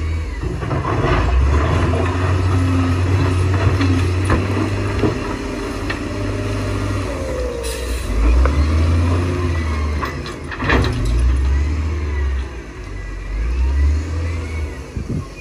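Heavy diesel machinery working under load, the engine note swelling and easing several times, with a few sharp metal clanks and thin squeals.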